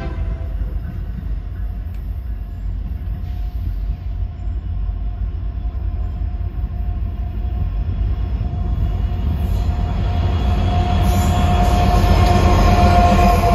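Union Pacific freight train's diesel locomotives rumbling as they approach around a curve and pass close. A steady high whine grows louder as the locomotives draw level near the end.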